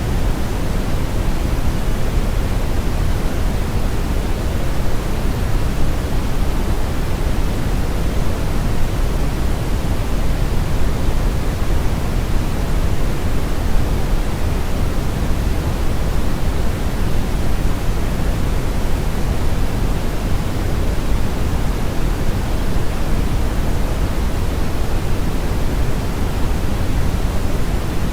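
Steady synthetic brown noise blended with white noise: a deep, even hiss weighted heavily toward the low end, with a fainter hiss reaching up into the highest pitches, unchanging throughout.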